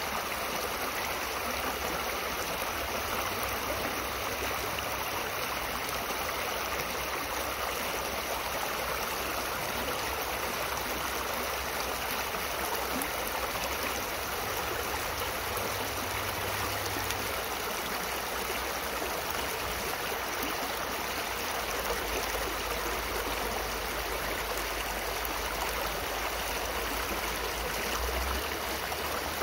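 Shallow rocky stream running over stones and small riffles: a steady rush of water.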